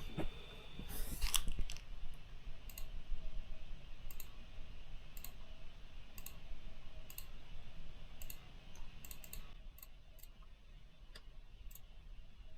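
Computer mouse button clicking: single sharp clicks about once a second, with a quick run of clicks a little past the middle, as text is entered on an on-screen menu.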